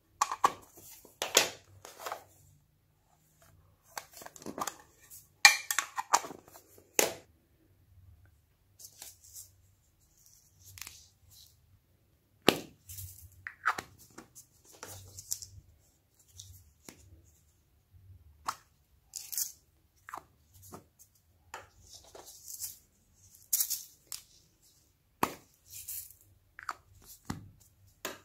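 Glossy slime being handled: sticky pulling and peeling crackles, and squishing as it is pressed into the tray, with clicks from a plastic slime container. The crackles are irregular, with a few sharper clicks.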